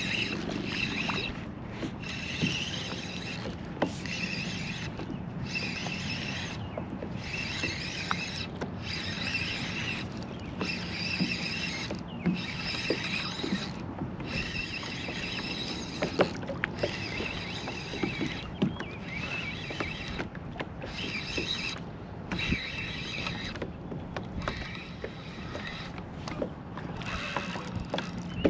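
Spinning reel being cranked in spurts of about a second with short pauses between them, its gears whirring as line is wound in.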